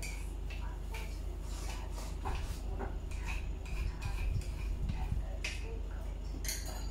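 Chopsticks clicking and tapping against a rice bowl and dishes during a meal, a scatter of small ticks over a steady low hum, with a sharper knock near the end.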